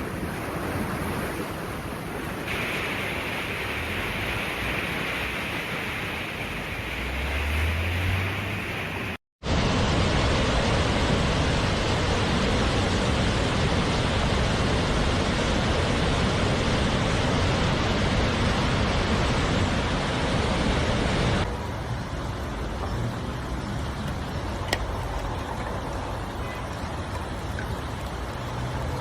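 Steady rushing noise of torrential rain and floodwater, changing abruptly where the footage cuts from shot to shot, with a brief dropout of all sound about nine seconds in.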